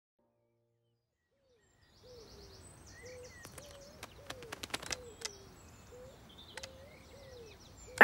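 Silence, then from about two seconds in a quiet garden birdsong ambience: small birds chirping and trilling high up, with a pigeon cooing low and repeatedly underneath.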